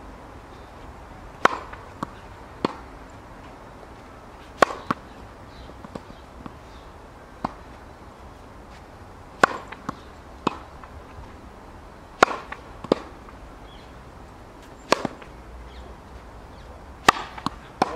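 Tennis ball struck by rackets and bouncing on a hard court in a rally: sharp pops every second or two, some in quick pairs of hit and bounce.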